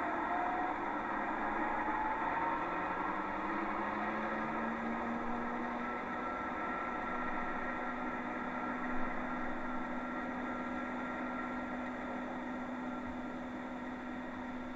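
Engine drone with a steady hum, its pitch rising over the first few seconds and then holding steady.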